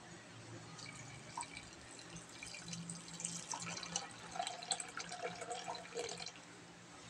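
Water poured from a plastic pitcher into a metal pot of raw peanuts, faintly trickling and splashing onto the nuts. The pour is heaviest in the middle and eases off near the end.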